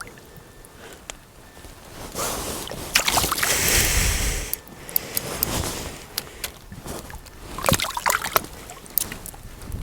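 Water splashing and sloshing in an ice-fishing hole as a hooked fish is worked up through it. It is loudest for a couple of seconds a few seconds in, with sharp clicks and another splashy burst near the end.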